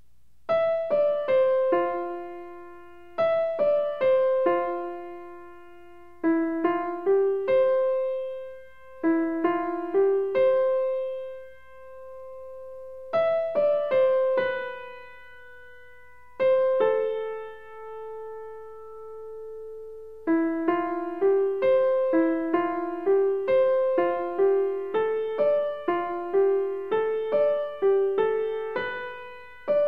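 Background piano music: a slow melody of single struck notes that fade, played in short phrases with pauses, then a steadier run of notes from about twenty seconds in.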